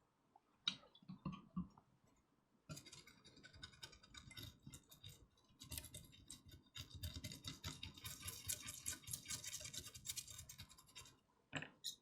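Faint scratching and rubbing with scattered small clicks from hand work at a repair bench. About three seconds in it thickens into a steady, irregular scrubbing, and it stops just before the end.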